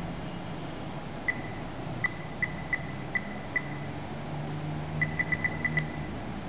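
Short high key-tap beeps from a Cardiopad medical tablet's touchscreen keyboard, one beep per key press. A run of six comes at about two a second, then after a pause of about a second and a half a quicker run of six.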